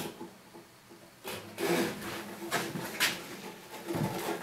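Gibson Hummingbird acoustic guitar being handled and lifted: a sharp click, then several knocks and rubs against its wooden body, with the open strings ringing faintly as they are brushed.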